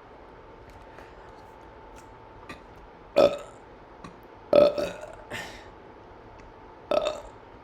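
A person burping deliberately: four short burps with quiet gaps between them, the first about three seconds in, two close together a second and a half later, and the last near the end.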